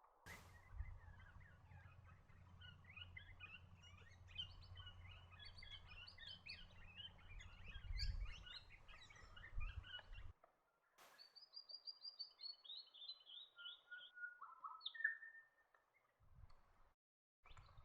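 Swift parrots chattering: many short, high chirps overlapping, with a low rumble underneath. After a cut about ten seconds in, a quick run of high calls falls in pitch, followed by a few scattered notes.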